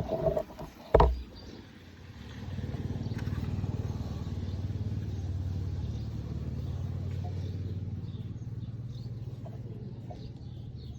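A sharp knock about a second in, then a steady low rumble of a motor that swells in about two seconds in and slowly fades.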